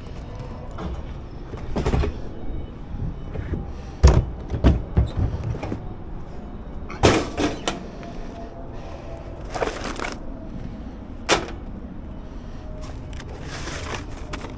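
A series of separate knocks and clunks over a steady low background rumble, the sharpest about four seconds in.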